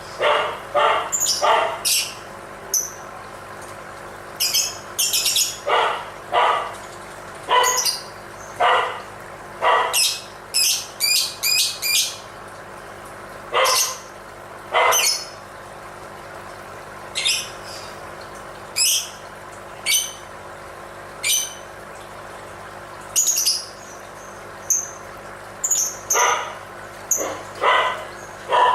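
Lovebird giving short, sharp, shrill calls over and over, often in quick runs of two to four with short pauses between.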